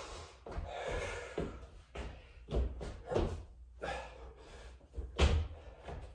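Thumps of a person doing burpees with push-ups and lunges on a floor, as hands and feet land, coming irregularly with the loudest about five seconds in, with hard breathing in between.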